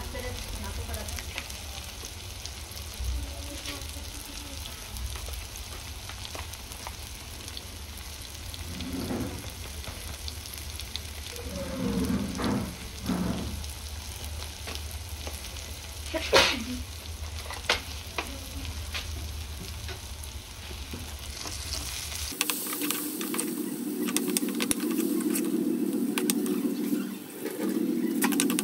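Onion-tomato masala with chilli powder sizzling in a pan while it is stirred, with one sharp knock about 16 seconds in. About 22 seconds in the sound abruptly turns brighter and steadier.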